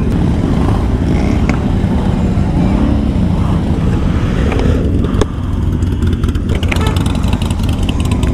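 Motorcycle engines idling with a steady low rumble, with voices in the background and a sharp click about five seconds in.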